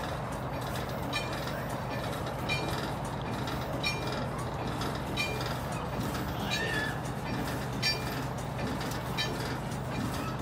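A railroad wig wag crossing signal is working, its bell dinging evenly about once every 1.3 seconds as the target disc swings. A steady low hum runs underneath.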